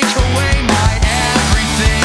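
Loud rock music with a steady drum beat.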